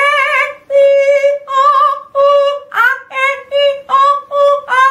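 A woman singing one high note on an open vowel over and over in short detached notes, about two a second, several of them scooping up into the pitch, after a first note held with vibrato. It is a vowel exercise sung with the jaw held wide open.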